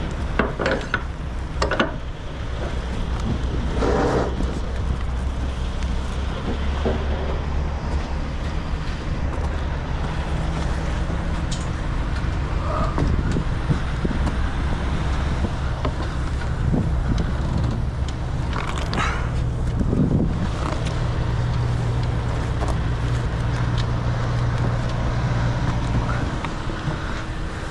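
Semi-truck diesel engine idling with a steady low drone, a second engine note joining for a while and cutting off near the end. A few short knocks and rustles from straps and edge protectors being handled on a rebar load.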